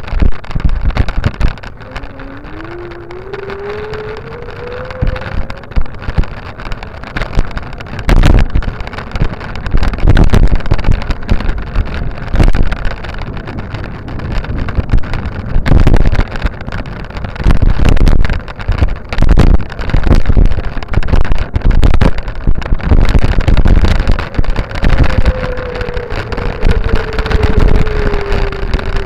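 Wind buffeting the microphone of a moving camera in loud, uneven gusts with a deep rumble. A whine rises in pitch a few seconds in, and another falls slowly near the end.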